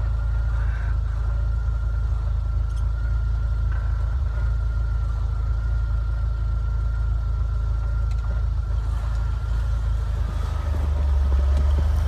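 Straight-axle Toyota 4Runner on 37-inch tyres crawling in low gear, its engine a steady low rumble with a thin steady whine over it, getting louder near the end as the truck draws close.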